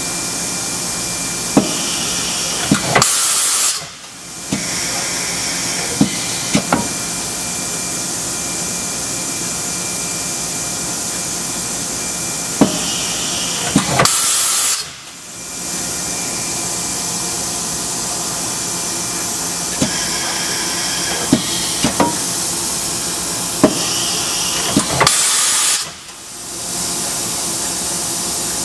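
Kitamura MYCENTER 0 vertical machining center running through a looped program with tool changes: a steady running noise broken by sharp clicks and clunks. Three times, about eleven seconds apart, there is a short loud hiss, after which the sound briefly drops away before the running noise builds up again.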